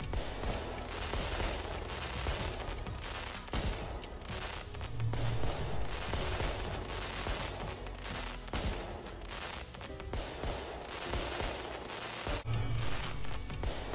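Aerial fireworks display: a dense, unbroken volley of shell bursts, with bangs and crackles overlapping one another.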